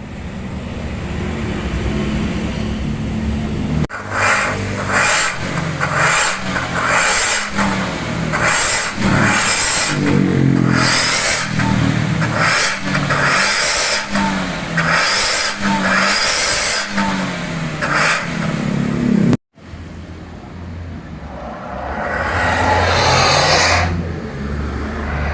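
Toyota Avanza engine through an aftermarket SUOS stainless-steel exhaust, idling, then revved in a quick series of about a dozen short throttle blips. After a brief break it idles again and is revved once, for longer, near the end.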